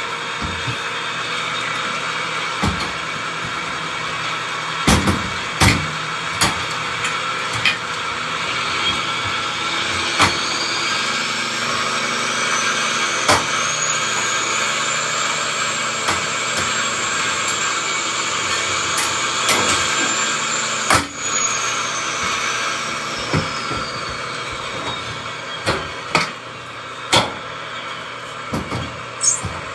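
Ambulance on the move: steady vehicle running noise with frequent sharp knocks and rattles. A faint high whine rises about ten seconds in, holds, and fades out a little before the last quarter.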